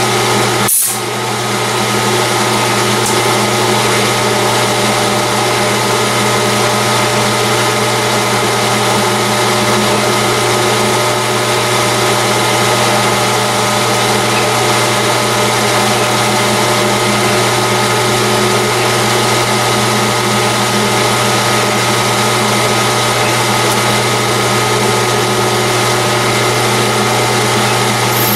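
Metal lathe running steadily, its motor and gearing giving an even mechanical whir with a steady low hum. There is a brief dip about a second in, then it runs on unchanged.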